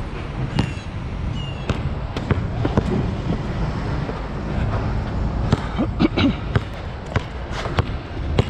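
Nike True Grip basketball bouncing on an outdoor court: a dozen or so sharp, irregularly spaced thuds, several close together past the middle, over a steady low background rumble.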